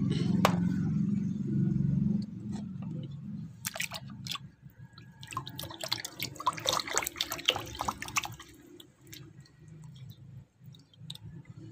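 Water sloshing and splashing in a plastic basin as a hand swishes and rubs a plastic toy under the water, in irregular small splashes that are busiest in the middle of the stretch.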